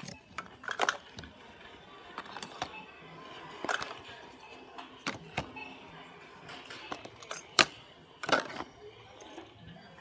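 Plastic toy food and items knocking and clattering against a plastic shopping basket as they are handled and set in, a few irregular knocks with the loudest two near the end.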